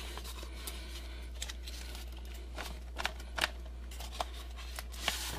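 Hands handling a cardboard Blu-ray box and the plastic case inside it: scattered light clicks and taps, with a brief rustling scrape near the end.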